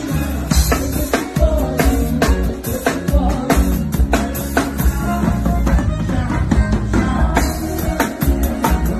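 Live forró band playing, with the drum kit close and prominent: a steady, busy beat of kick drum, snare and cymbals under the band and a singing voice.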